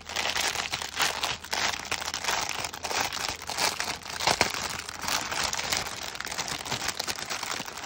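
Clear plastic wrap and the plastic bags of diamond painting drills inside it crinkling and rustling as fingers pick at and pull the wrap, with a steady run of small crackles.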